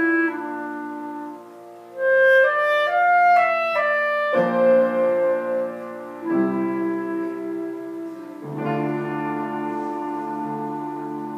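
Solo piano music: slow held chords, with a quick run of single notes about two seconds in, then fresh chords struck about four and a half, six and eight and a half seconds in.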